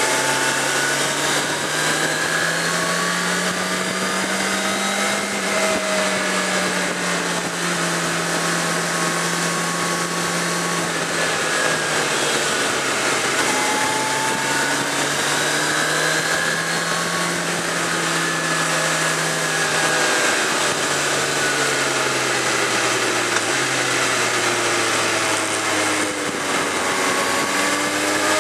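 Suzuki GSX650F's inline-four engine running under way, its pitch rising and falling slowly as the rider accelerates and eases off through the bends, over steady wind and road noise.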